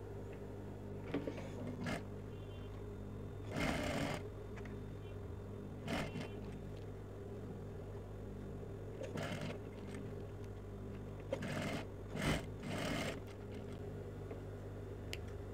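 Industrial sewing machine stitching a sleeve in short bursts, about eight runs of well under a second each, stopping and starting as the fabric is guided. A steady low hum runs underneath.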